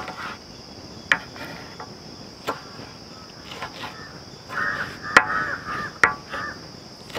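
Chef's knife cutting ripe red chillies on a wooden cutting board: about five sharp taps of the blade hitting the board, irregularly spaced, over the steady chirping of crickets.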